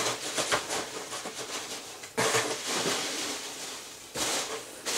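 Hands rummaging through foam packing peanuts in a cardboard box: continuous rustling and scraping, with sudden louder rustles about two and four seconds in.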